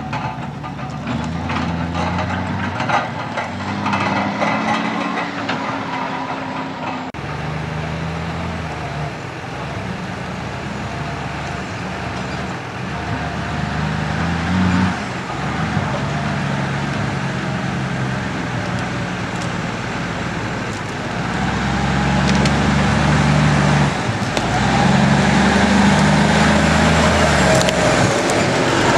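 Heavy-duty 6x6 Mack logging tractor's 400 hp Cummins diesel working under load off-road, its engine note stepping up and down several times and getting louder near the end as the truck comes closer. Rattles and knocks from the log trailer in the first few seconds.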